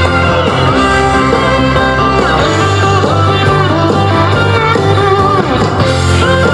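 Heavy blues-rock music with a gliding electric guitar line over a steady bass, playing loudly through a JBL Charge 5 portable Bluetooth speaker during a sound test.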